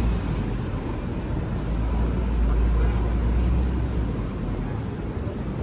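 City street traffic: cars driving past close by, with a low rumble that swells about two seconds in and eases after four.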